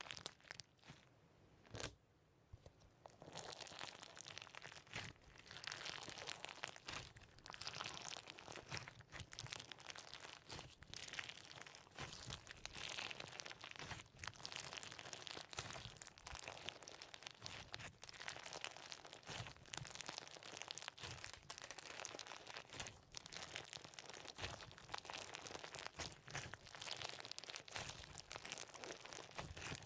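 Crunchy slime being squeezed and poked, giving a continuous stream of small crunches and crinkly crackles that starts about three seconds in.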